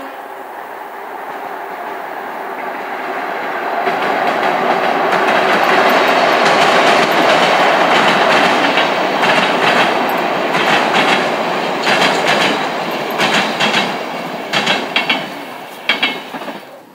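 Passenger train crossing a bridge: the wheel and rail rumble swells as the coaches approach, then groups of sharp clickety-clack strikes come from the wheels passing over rail joints, before the sound falls away near the end.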